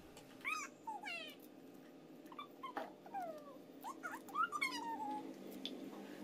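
Faint, short, high-pitched cries of a small domestic animal: several brief calls that bend up and down in pitch, scattered through the first five seconds, over a low steady hum.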